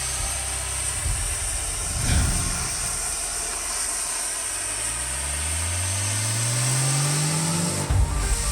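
An engine revving up, its pitch rising steadily over about three seconds, over a steady high hiss; it cuts off abruptly near the end.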